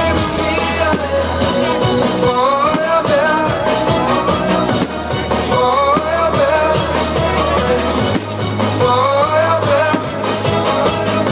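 Pop music playing loudly: a wordless passage of the song, with a wavering lead melody repeating in phrases over a steady drum beat.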